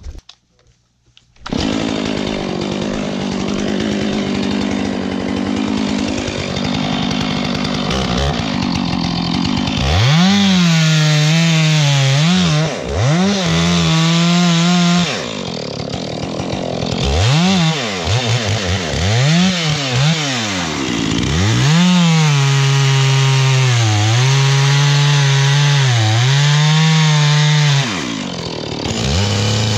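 Two-stroke Stihl chainsaw bucking a pine log. After a steady rough run, from about a third of the way in the engine revs up and sags again and again, its pitch dropping each time the chain takes the load of the cut and rising as it frees.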